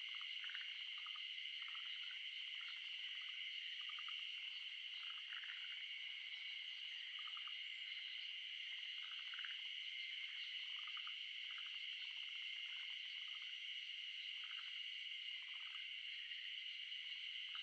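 Outdoor chorus of calling frogs and insects: a continuous high-pitched drone with many short trilled calls repeating irregularly over it.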